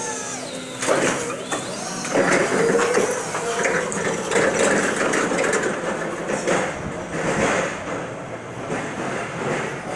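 Electric stand-up reach truck driving off along a racking aisle: a whine from the drive that glides in pitch at first, then a steady run of rattling and clattering from the truck's mast and wheels.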